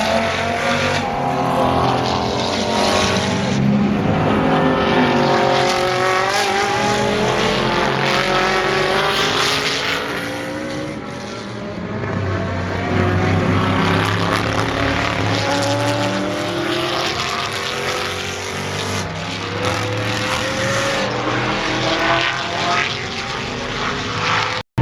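Several GT race car engines at speed on the circuit, one after another, their pitch climbing through the gears and dropping at each shift. The sound eases briefly about eleven seconds in, then picks up again as more cars come through.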